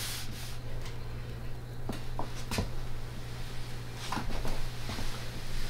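Household iron being pushed along a folded fabric strip on an ironing board, with a few light knocks and taps as the iron and hands move, over a low steady hum.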